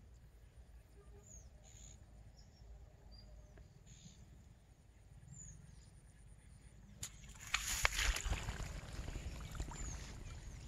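Quiet pond-side ambience with faint bird chirps, then about seven seconds in a sharp click as the rod is struck, followed by a few seconds of loud splashing and rustling as a small hooked fish is pulled out of the water.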